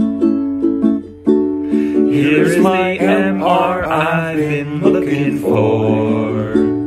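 A group song: plucked-string accompaniment plays alone at first, with a short break about a second in, then several voices come in singing together about two seconds in, a parody line about an MRI.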